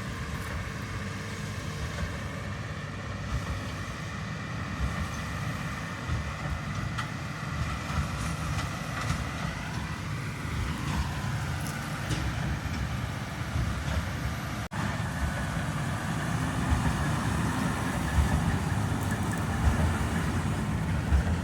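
Heavy farm machinery running steadily: a deep engine rumble with a faint higher whine above it. The sound cuts out for an instant about two-thirds of the way through.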